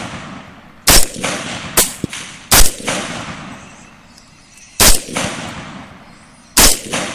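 Suppressed rifle shots: four sharp cracks about a second and a half to two seconds apart, each trailing off in a fading echo, with a fainter crack between the first two.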